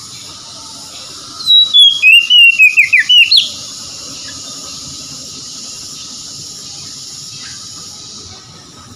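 Oriental magpie-robin singing one short phrase of about ten quick whistled notes that slide down in pitch, about a second and a half in, over a steady high hiss.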